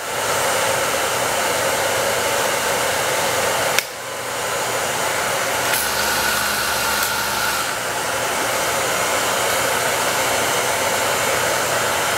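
Steady, loud hiss of noise, with one sharp click about four seconds in and a faint low hum for a couple of seconds in the middle.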